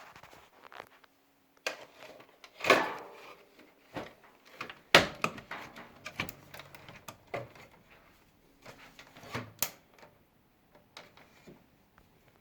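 Irregular knocks, clicks and scrapes of hands and parts being handled inside a dryer cabinet during a drive-belt replacement. Two louder knocks stand out a few seconds in, and lighter taps and rattles follow.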